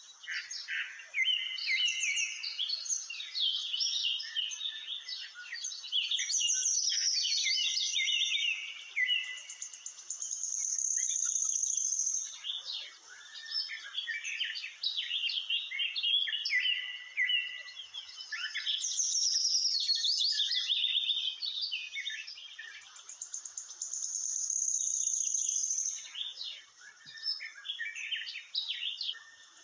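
Songbirds chirping and singing in a busy, high chorus of short calls and trills.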